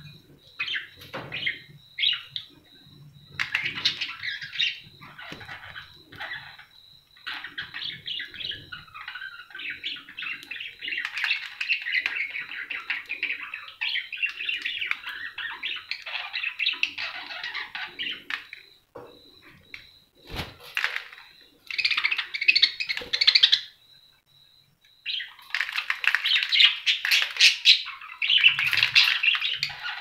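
Budgerigars chattering in long runs of quick, busy chirps with short pauses. A single sharp knock comes about two-thirds of the way through.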